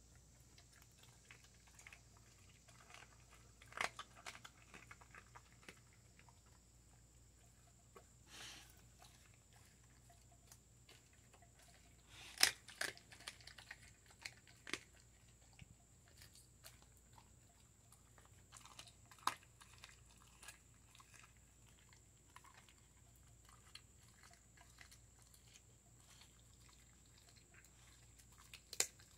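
Siberian Husky chewing and crunching raw chicken bones: quiet gnawing broken by sharp, irregular cracks of bone, the loudest a little under halfway through.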